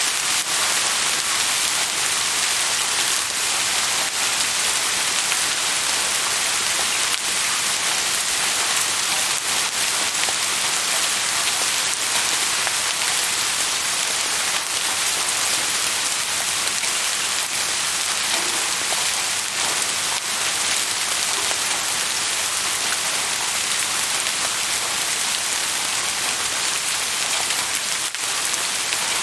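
Steady rain falling on a surface, a continuous even hiss with scattered faint drop ticks.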